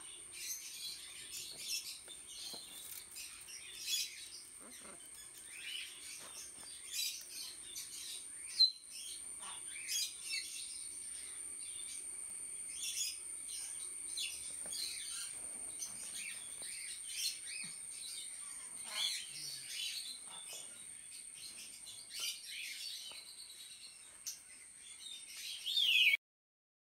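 Many short high-pitched bird chirps and calls over a steady high-pitched whine, with one sharper louder call about a third of the way in. It all cuts off suddenly shortly before the end.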